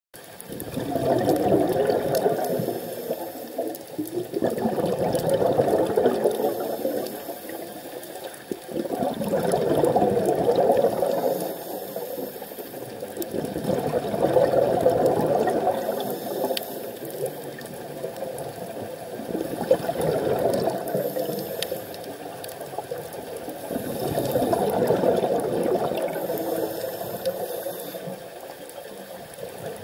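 Scuba breathing through a regulator underwater: slow, regular breaths, each a rush of exhaled bubbles lasting two to three seconds and coming back about every four to five seconds.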